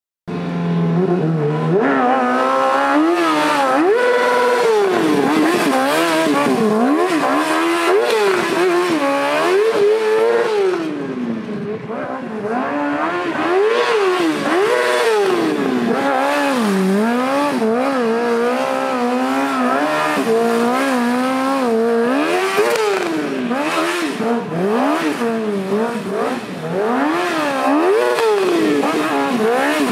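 Stunt motorcycle engine held steady at first, then revved up and down over and over as the bike is wheelied and slid, the pitch rising and falling every second or two.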